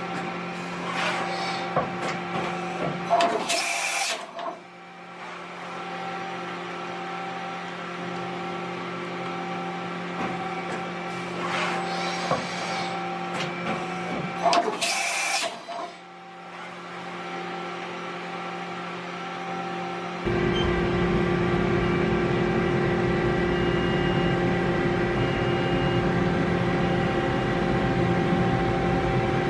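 Mori Seiki NH4000 DCG horizontal machining center running, a steady mechanical hum and whine. Two short hisses come about four seconds in and again about fifteen seconds in. After about twenty seconds the running noise steps up louder, with a low rumble added.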